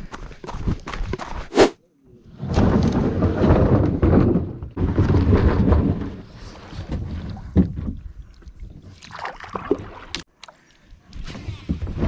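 A kayak on the water: paddle splashes and water sloshing around the hull in uneven surges, with a few knocks and thumps against the boat.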